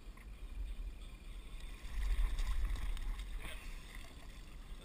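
Wind rumbling and buffeting on the camera's microphone, loudest from about two to three and a half seconds in, with water splashing around a small boat and a few sharp clicks near the end.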